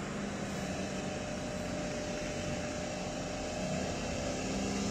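Off-road 4x4's engine pulling under load as it climbs a muddy track, a steady drone that grows slightly louder toward the end.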